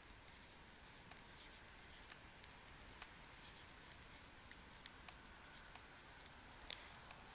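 Faint taps and light scratches of a stylus on a tablet as words are handwritten, scattered irregular ticks over near-silent room tone.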